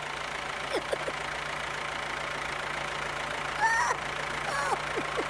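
Farm tractor engine idling steadily, with short high chirps over it, the loudest about three and a half seconds in.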